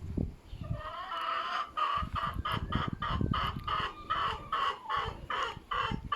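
A chicken clucking over and over, about three short calls a second, starting about a second in.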